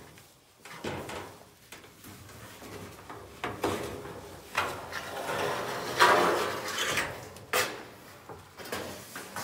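Wooden wall panel scraping and knocking against the frame of an elevated box blind as it is lifted and worked into place: a run of irregular scrapes and bumps, loudest about six seconds in, with a sharp knock soon after.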